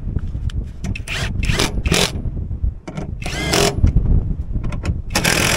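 Cordless drill-driver running in several short bursts, spinning up with a rising whine each time, as it drives the bolts back into a tractor body panel.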